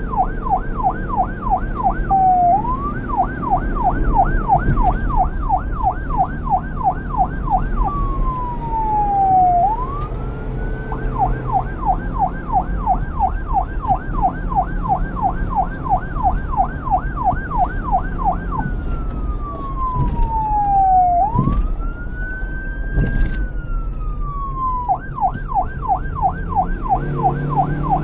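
Police car siren cycling between a fast yelp and a slow wail: quick up-and-down sweeps, about three or four a second, broken three times by long falling and rising glides. A low rumble runs underneath.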